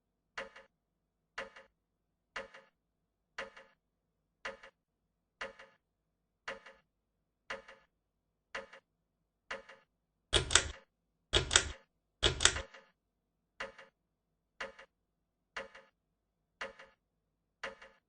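FASCO Decorator 48-inch ceiling fan ticking in a steady rhythm, a short double click about once a second. Three louder, longer knocks come in a row about ten seconds in, then the regular ticking resumes.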